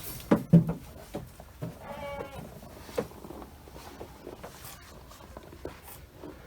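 A goat bleats once, a short wavering call about two seconds in. A few sharp knocks come just before it, near the start, and these are the loudest sounds.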